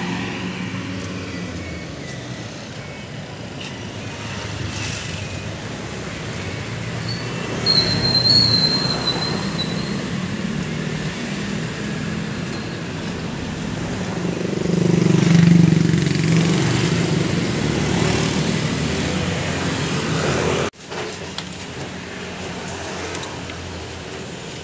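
Street traffic: a steady hum of vehicles, with one passing louder about two-thirds of the way through and a brief high squeal about eight seconds in. The level drops suddenly near the end to a quieter background.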